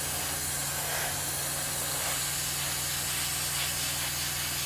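Airbrush spraying primer, a steady hiss of compressed air and paint mist with a low steady hum underneath.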